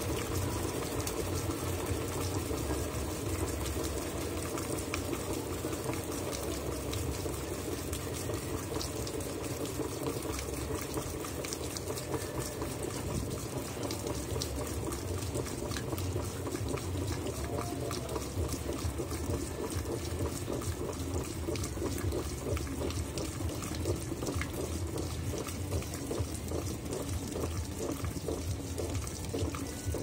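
Water pouring from the dispenser into a GE 15 kg top-load washing machine while its basket of wet towels turns, a steady splashing over the low hum of the machine's drive, during the washer's intermediate spin leading into the rinse fill.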